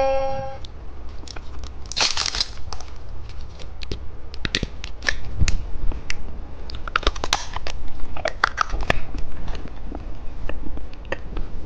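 Plastic candy packaging being handled and torn, crinkling and rustling with scattered sharp clicks. A short pitched ringing tone dies away at the very start.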